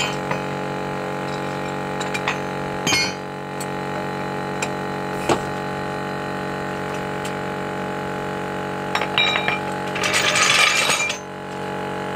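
Metal tools and a hydraulic floor jack clinking and knocking during a wheel change, with scattered sharp clicks. Near the end comes a louder rattling scrape lasting about a second, all over a steady hum.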